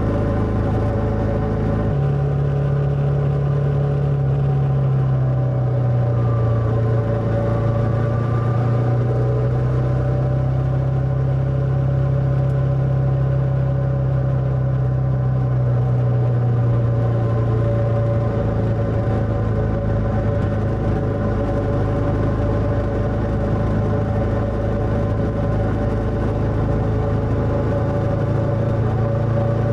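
Motorcycle engine running while riding, with a steady engine note that steps up in pitch about two seconds in, eases down a little over the next several seconds, then holds steady.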